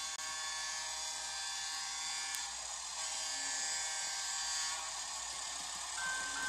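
Atlas N-scale Alco S-2 locomotives' DCC sound decoders playing diesel switcher engine sound through tiny speakers: a steady, thin, whiny running sound made of many high tones. Near the end a steady high tone with regular short breaks starts up, a decoder signal sound.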